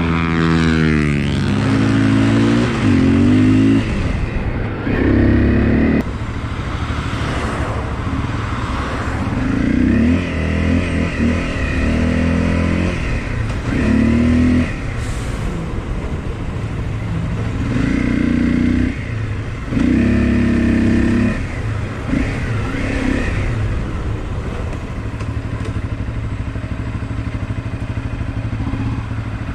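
Motorcycle engine accelerating away with rising revs about a second in, then running at low speed with repeated short bursts of throttle every few seconds.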